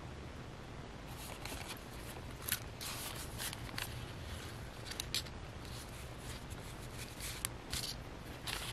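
Quiet rustling of paper and card with light taps and scrapes, as a handmade paper notebook and its card cover are handled and slid across a tabletop, in short scattered bursts.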